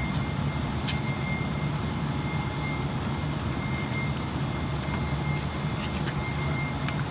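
Steady low machine hum with a faint high steady whine, and a few light clicks about a second in and near the end.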